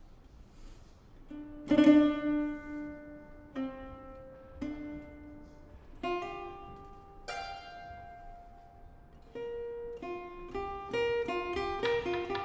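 Zhongruan plucking slow, separate notes that ring out and fade, after a brief hush; the notes come closer together near the end.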